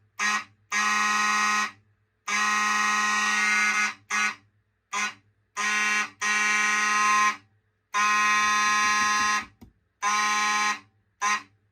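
Fire alarm horns sounding a buzzy tone in a coded pattern driven by a NAC coder set to the Simplex 4002 California code: an uneven run of short blips and longer blasts of about a second or more, each cut off sharply.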